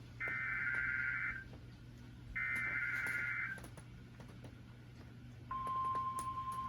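Emergency Alert System SAME header on NOAA Weather Radio: two bursts of warbling digital data tones, each about a second long and a second apart. Near the end the steady, single-pitched NOAA Weather Radio warning alarm tone starts abruptly. Together they signal that a flash flood warning is being issued.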